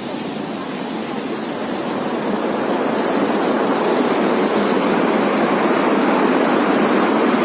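Steady rushing noise of a heavy rainstorm, growing a little louder over the seconds.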